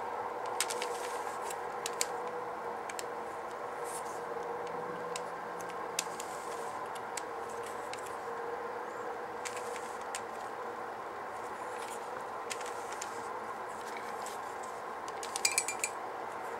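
Plastic Rubik's cube turned face by face, giving sharp single clicks every second or two and a quick cluster of clicks near the end, over a steady background hum.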